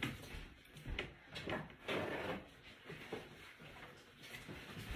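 Quiet handling sounds: light knocks and rustling as things are moved about while something to wipe a board with is fetched, with a louder rubbing or rustling noise about two seconds in.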